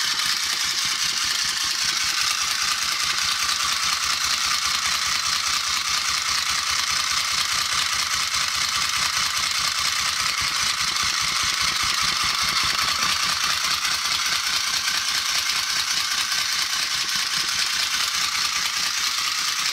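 Battery-operated flying bald eagle toy running: its small electric motor and gear train whir steadily with a fast, even clatter as the wings flap. The gears have been replaced in a repair and are holding up.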